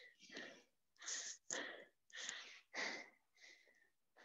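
A person breathing hard and fast close to a headset microphone, recovering from an exercise interval. The breaths come as short puffs, about six of them, one to two a second, and fade out near the end.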